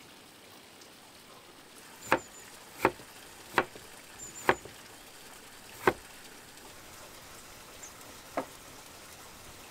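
Six sharp knocks, irregularly spaced, over a faint steady hiss.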